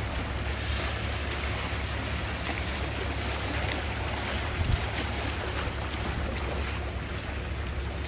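Calm sea waves washing steadily, with wind on the microphone adding a low rumble and a brief buffet about halfway through.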